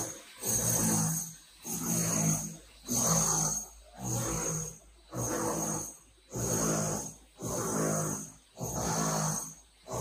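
Repeated rasping strokes of work on a building site, about one a second, each with a low buzz in it.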